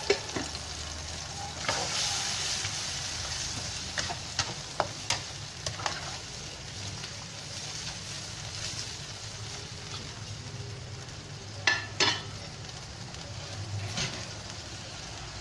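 Vegetables cooking in boiling gravy in a wok, a steady bubbling hiss, while a spatula stirs them, knocking and scraping against the wok a few times, loudest about twelve seconds in.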